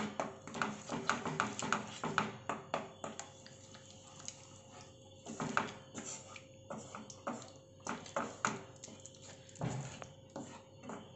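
Spatula scraping and knocking against a nonstick pan in irregular strokes as a thick egg-and-brain mixture is stirred, over a faint steady hum.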